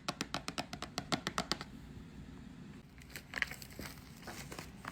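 Packaging being handled: a quick run of sharp clicks for about a second and a half, then plastic crinkling.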